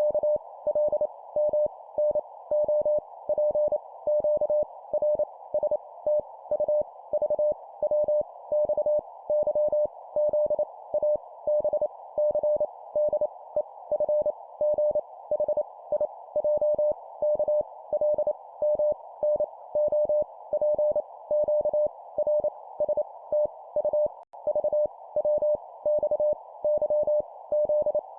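Morse code (CW) tone keying out random letters at 25 words per minute: one steady pitched note switched on and off in quick dots and dashes, over a constant background hiss.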